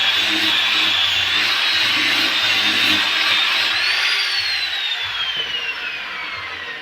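Power tool motor running with a steady high whine, then released about four seconds in and winding down, its pitch falling and the sound fading.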